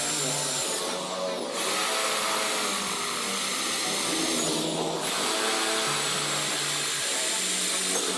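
Handheld electric drill boring holes in a flat steel bar: a steady high motor whine that stops briefly about a second in and again about four and a half seconds in, spinning back up each time.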